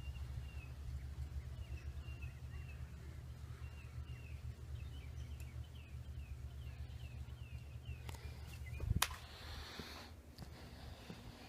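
A small bird chirping, a long run of short, quick high chirps, over a steady low rumble; a single sharp click about nine seconds in.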